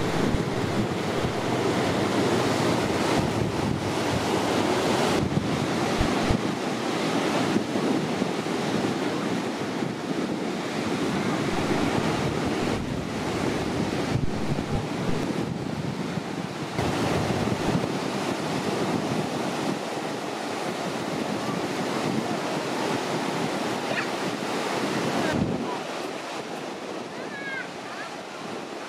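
Surf breaking and washing up a sandy beach, with wind buffeting the microphone in low rumbling gusts. The wind rumble drops away near the end, leaving the wash of the waves.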